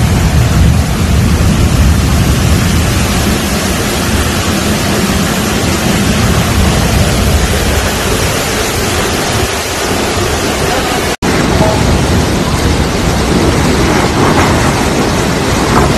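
Loud, steady rushing and churning of floodwater, with a brief dropout about eleven seconds in, after which the rushing water carries on.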